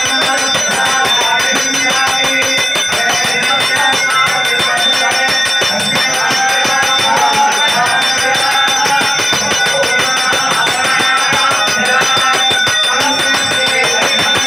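Temple bells ringing rapidly and without pause, with a wavering melody carried over them, during the pouring of consecrated kalasam water over the deity at a kumbhabhishekam.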